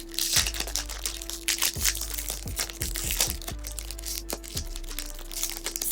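Foil booster-pack wrapper crinkling and tearing open in irregular sharp crackles as the cards are pulled out, over steady background music.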